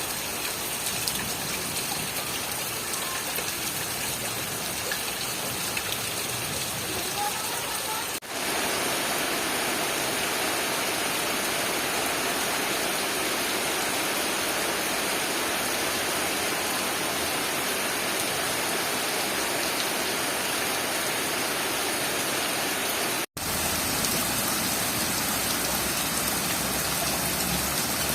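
Steady, dense rain falling, an even hiss of many drops. It cuts out for a split second twice, about 8 and 23 seconds in, then resumes at the same level.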